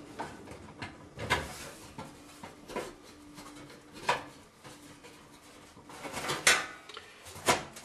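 Metal parts clinking and knocking against an oven's sheet-metal bottom pan as the burner, gas pipe and igniter are fitted and screwed in by hand. A handful of sharp metallic clinks at irregular intervals, the loudest about two-thirds of the way through.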